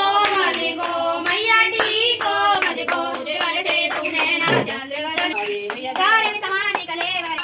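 A family singing a Hindu aarti hymn together, a child's voice among them, with steady rhythmic hand-clapping in time with the singing.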